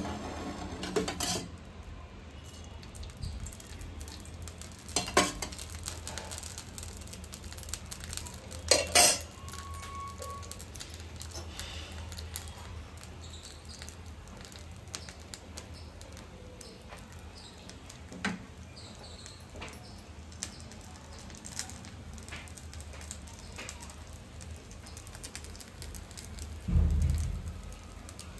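Dosa batter cooking on a flat iron tawa over a gas burner: a faint sizzle over a low steady hum, broken by occasional sharp metal clinks of pans and utensils, the loudest a pair about nine seconds in, and a low thump near the end.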